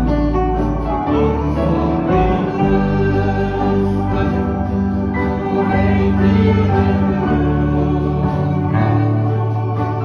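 Small band playing a heartfelt Norwegian Christian song: a woman singing lead over acoustic guitars, an electric guitar and a piano accordion, the accordion's held chords giving an organ-like sound.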